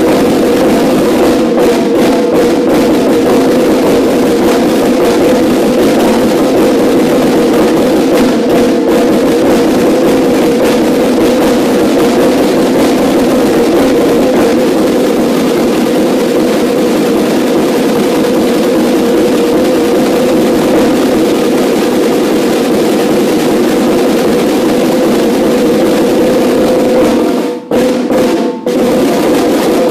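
A line of five Yamaha marching snare drums played together in a fast, dense, continuous passage, breaking off briefly twice near the end.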